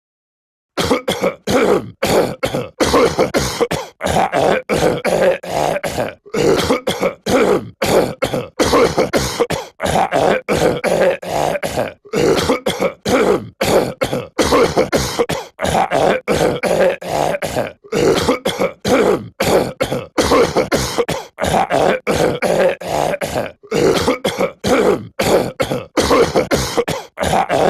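A cartoon character's voice clearing his throat and coughing, one short clip looped over and over in rapid, closely spaced bursts, starting just under a second in.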